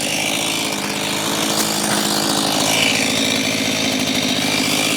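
Chainsaw engine idling steadily, with no revving or cutting.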